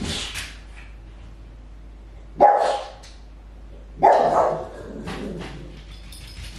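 A dog barking: two loud barks, about two and a half seconds in and again a second and a half later.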